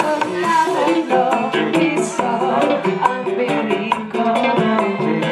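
Loud upbeat dance music with a singer and steady percussion, played through large outdoor PA speaker stacks.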